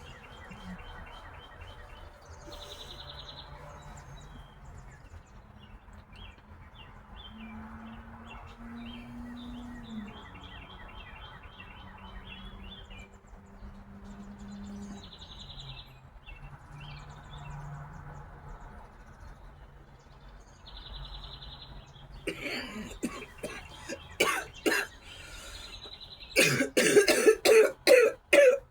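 A woman coughing: scattered coughs start about three-quarters of the way through, then a fit of about half a dozen hard, rapid coughs near the end. Small birds chirp faintly before the coughing starts.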